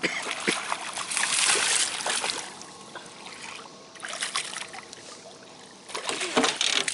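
Water splashing and sloshing against a fishing boat, coming and going, with a few light knocks.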